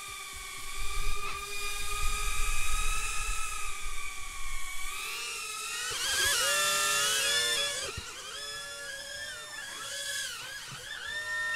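EMAX TinyHawk micro FPV drone's tiny brushless motors and ducted props whining in flight. The pitch holds steady for the first few seconds, then from about six seconds in it jumps higher and wavers rapidly up and down as the throttle is worked, and the whine cuts off abruptly at the end.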